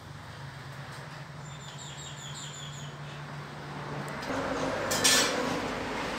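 Kitchen sounds at a stove: a steady low hum, and a bird chirping a quick run of short notes in the background. From about four seconds in, a rising rustling noise with one brief, loud rush of noise about five seconds in.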